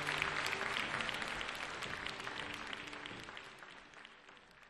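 Theatre audience applauding a live opera performance, with the orchestra's last held notes dying away beneath it in the first second or so; the applause fades steadily out.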